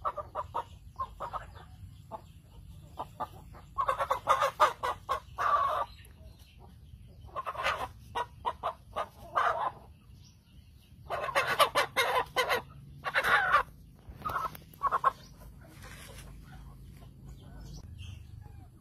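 Animal calls: about five bursts of rapid, repeated calls a second or two apart, over a steady low rumble.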